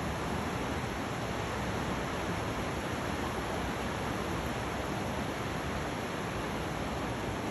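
Steady, even rushing noise of ocean surf at a beach.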